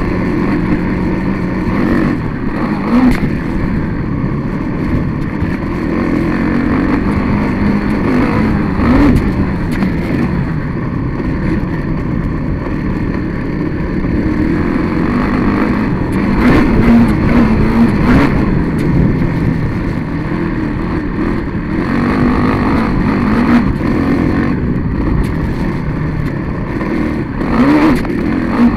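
Vehicle engine heard from an onboard camera, running hard and revving up and down repeatedly over rough dirt ground, with several sharp knocks along the way.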